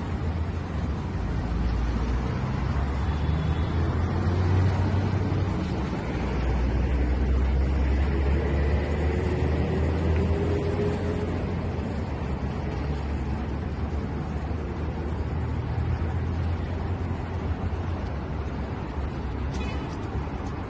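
Steady low rumbling background noise with an even hiss above it.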